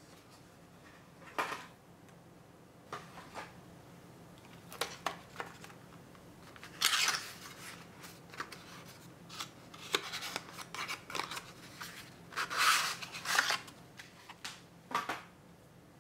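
Hands handling white card packaging: a card sleeve is slid open and a wax seal stamp taken out and set down, giving scattered crisp paper rustles and scrapes with a few light taps. The loudest rustles come about seven seconds in and again around thirteen seconds.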